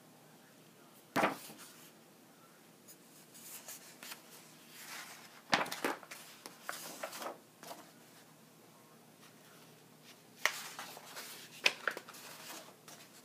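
Sketchbook pages being handled and turned: paper rustling with a few sharp knocks, in three bouts about a second in, around the middle and near the end.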